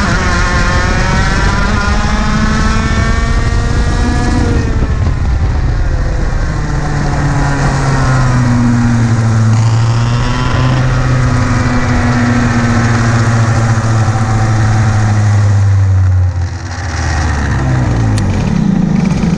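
IAME KA100 100cc two-stroke kart engine, heard onboard under racing load. It revs up in pitch, falls off sharply about four seconds in as the throttle is lifted for a corner, climbs and holds again, then dips briefly near the end before picking back up.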